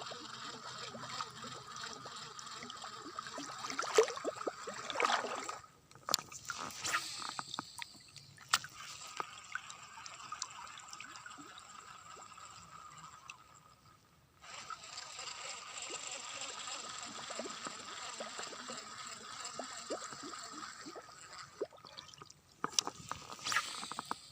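Water trickling and gurgling over a steady outdoor hiss, with a few sharp knocks, the loudest about four seconds in and a cluster near the end.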